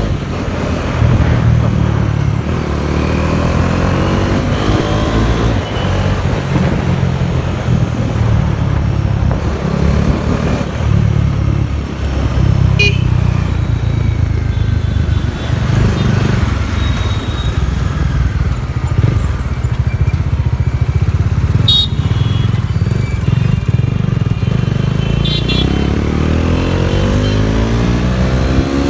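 Bajaj Dominar 400's single-cylinder engine running steadily on the move, its pitch rising as it accelerates near the start and again near the end. Three short high-pitched sounds stand out in the second half.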